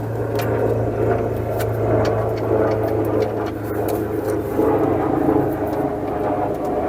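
Honda S2000 power window motor running steadily, driving the glass through the newly fitted window regulator: a constant low hum with a whirring, grinding mid-range.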